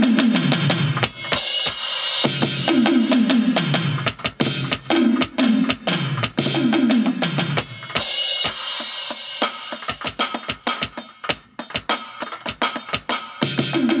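Simmons electronic drum samples played with sticks on a Roland SPD-SX Pro sampling pad: tom hits that drop in pitch right after each strike, played in quick descending fills, with some hissing cymbal-like washes between them and a run of rapid strikes near the end.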